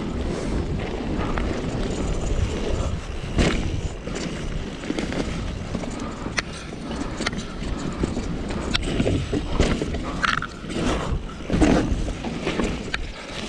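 Mountain bike rolling fast over a rough, muddy trail: steady tyre and trail rumble, with the bike knocking and rattling over bumps and roots.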